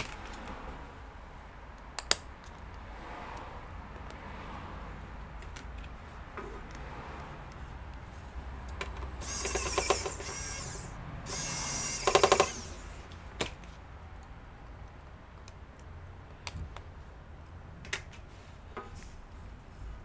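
A small screwdriver working at a laptop's metal hinge bracket: scattered light clicks and taps, with two bursts of rapid, rasping scraping clicks around the middle.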